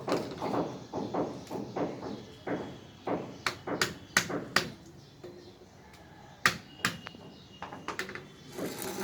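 Rigid UPVC pipe pieces and fittings clacking and knocking together as short pipes are pushed into tee fittings: a run of sharp plastic clicks, the loudest about six and a half seconds in. Voices are heard in the background during the first few seconds.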